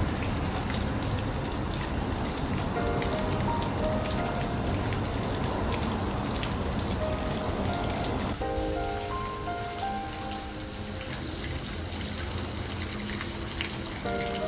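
Steady hiss of falling water, louder in the first half and quieter after about eight seconds, under gentle background music of short held melody notes that begins about three seconds in.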